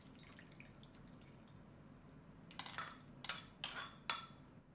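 Thin soup being poured from a glass bowl onto chicken feet in a ceramic bowl: faint at first, then four short splashes and drips in the last two seconds as the bowl is tipped and emptied.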